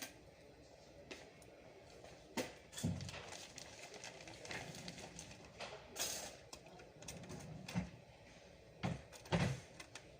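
Scattered clicks, taps and knocks of desktop computer parts being handled, with a few heavier thumps about three seconds in and twice near the end.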